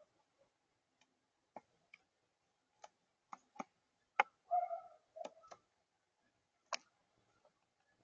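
Common grackle pecking at peanuts and seed on a plastic tabletop: about ten sharp, separate taps and clicks of its beak, irregularly spaced, with a brief low-pitched sound about halfway through.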